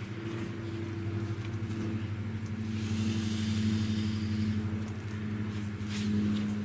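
Electric workshop fan running, a steady hum with a soft rush of moving air; a couple of faint clicks near the end.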